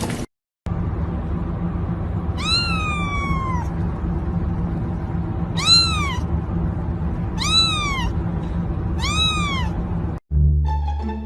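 A cat meowing four times, each meow a drawn-out call that rises and then falls in pitch, the first one the longest, over a steady low background noise. Music with plucked strings begins just before the end.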